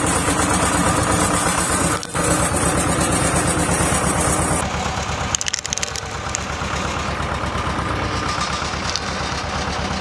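Road roller's diesel engine running steadily with a fast, even knocking pulse as the drum rolls. About halfway through, the sound turns duller.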